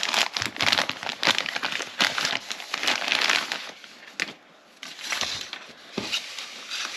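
Thin plastic packaging bag crinkling as it is handled and pulled open. The crinkling is dense for the first few seconds, lulls briefly about four seconds in, then comes back as scattered rustles.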